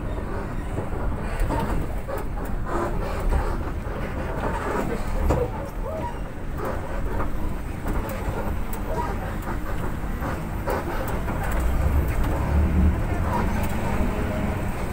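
Bus running over a wet, potholed road, heard from inside: a low engine and road rumble with the body rattling and knocking over the holes, the rumble heavier near the end.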